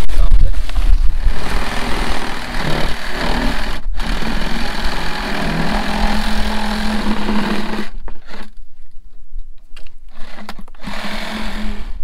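A small electric motor running in stretches: a steady hum that stops for a couple of seconds and starts again. Wind buffets the microphone at the start.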